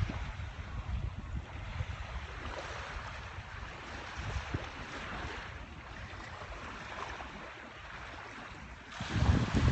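Ocean surf washing on a beach, with wind rumbling on the phone's microphone; the wind buffeting gets louder near the end.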